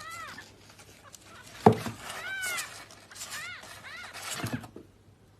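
Kitten mewing: about four short, high-pitched meows that rise and fall in pitch, with a sharp knock about a second and a half in.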